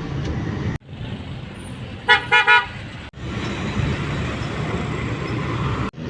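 Road traffic rumble with a vehicle horn tooting three quick times about two seconds in.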